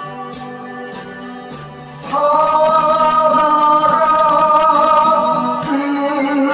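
Music from a Korean folk song's instrumental break: a soft backing with a steady light beat, then about two seconds in a loud held melody note comes in with slight wavering and carries on.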